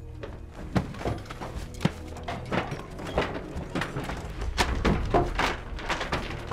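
Wooden cabinet doors being opened and handled as a man rummages through a cabinet: a string of irregular knocks and thuds, coming faster in the second half.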